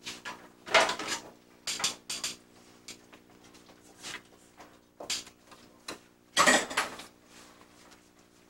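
Metal pans and kitchenware clattering: a few sharp clanks as a metal baking pan is handled and set down on a counter, the loudest about a second in and again around six and a half seconds in, with lighter knocks between. A steady low hum runs underneath.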